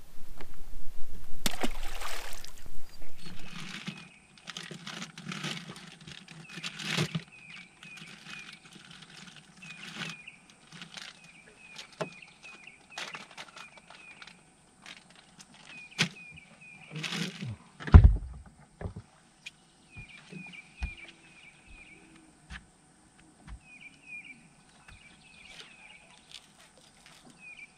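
Sounds on an open fishing boat: a loud noisy stretch in the first few seconds, then a bird calling in quick runs of short chirps, with scattered clicks and knocks and one heavy low thump about halfway through.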